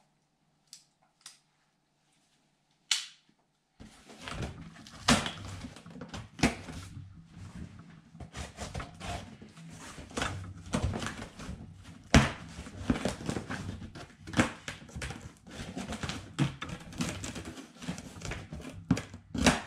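A few small clicks and one sharp click about three seconds in as the scissors are handled, then scissors cutting and scraping along packing tape on a cardboard box, an irregular crackling and rasping full of sharp clicks and taps on the cardboard.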